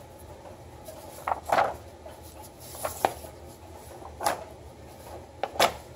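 Paper magazines being handled and shifted on a wooden floor: several short rustles and slides of glossy paper, with quiet room tone between them.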